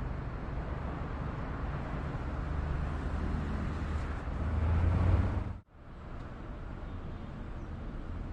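Steady outdoor background noise with a low rumble that swells toward a peak about five seconds in, then cuts out abruptly and comes back at its earlier level.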